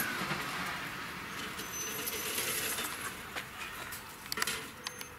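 Train noise fading away as it moves off from a level crossing, with light metallic clinks and a few sharp clicks while the crossing's barriers lift.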